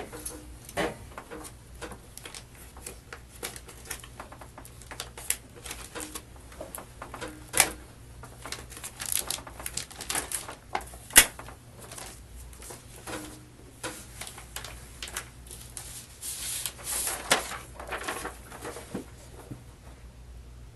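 Irregular small clicks, taps and rustles of objects being handled, over a steady low room hum.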